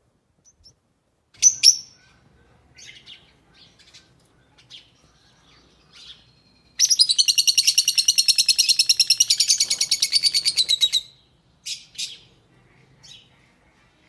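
Fischer's lovebird chirping: two sharp chirps, then scattered soft chirps, then a rapid chattering run of about ten high notes a second lasting some four seconds, followed by two more chirps.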